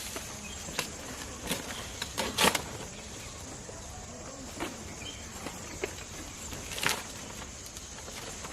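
A steady, high-pitched insect drone, with a few short light knocks and clicks scattered through it; the loudest comes about two and a half seconds in.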